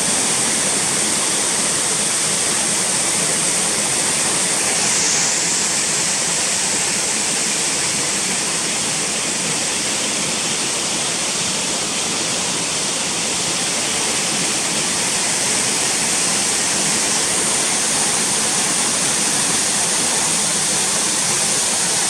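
Waterfall in full spate: a steady, loud rush of falling water, the stream running with far more force than it usually carries.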